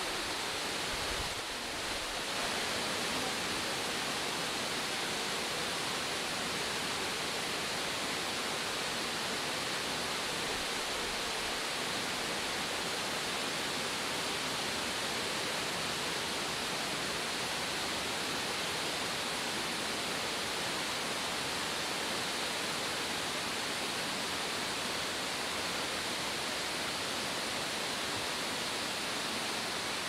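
Shiraito Falls, hundreds of small falls spilling down a curved rock cliff, giving a steady, unbroken rush of falling water.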